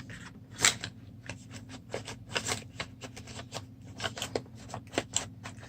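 Rapid, irregular clicking and light scraping from a pocket knife being handled, with a few sharper clicks, over a steady low hum.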